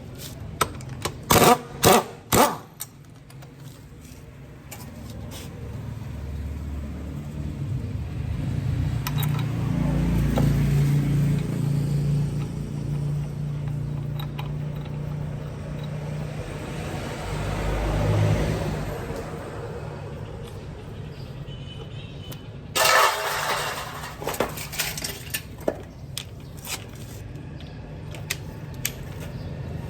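Honda Dream motorcycle's small single-cylinder engine running, its speed rising and falling twice. Several sharp loud clicks come in the first few seconds, and a loud burst of noise comes about two-thirds of the way through.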